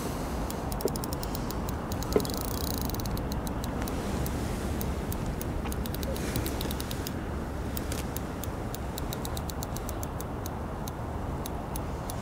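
Fishing reel clicking in runs of quick ticks while a hooked fish is played on a bent rod, over steady wind noise on the microphone. A single knock about two seconds in.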